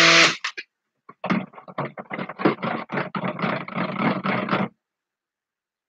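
A stick blender running stops within the first half second. It is followed by a quick run of knocks and scrapes, several a second, as the blender head is worked around the inside of a plastic jug, ending about three-quarters of the way through.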